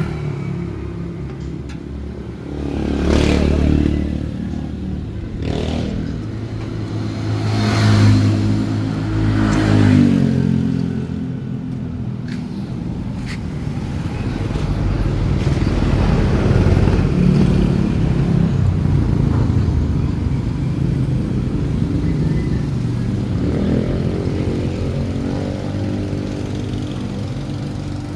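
Kawasaki Barako motorcycle's single-cylinder engine running, revved up several times in the first ten seconds, then settling into a steady idle.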